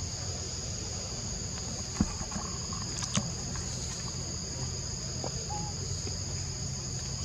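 Insects droning steadily at two high pitches in the forest, with a couple of sharp clicks about two and three seconds in.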